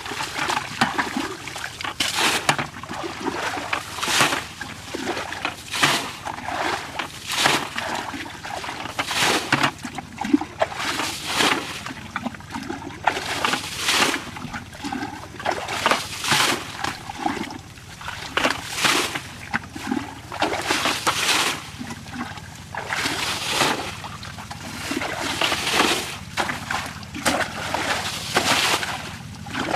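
Water splashing and sloshing in repeated bursts, one every second or two.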